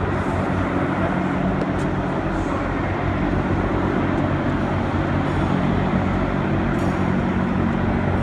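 Class 8 truck's diesel engine idling steadily, a low, even rumble, with a few faint clicks over it.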